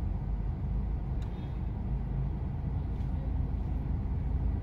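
Steady low rumble of idling vehicles and traffic, heard from inside a car's cabin, with a faint click about a second in.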